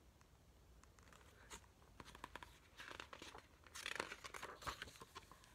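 Pages of a hardcover picture book being turned by hand: a run of faint paper rustles and flicks starting about two seconds in, loudest near four seconds.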